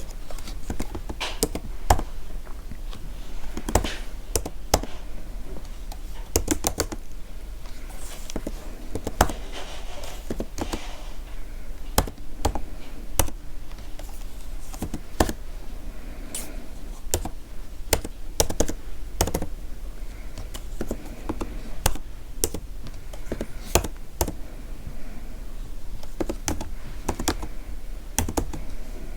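Typing on a computer keyboard: a steady, irregular run of key clicks with occasional louder key strikes.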